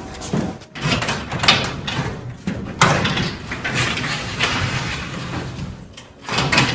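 Garage door rattling and rumbling in uneven stretches as it moves, with a low hum underneath.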